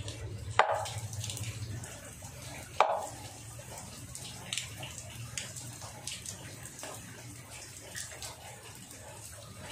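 Water dripping and splashing, with scattered small ticks over a steady low hum. Two sharp knocks stand out, about half a second in and again near three seconds.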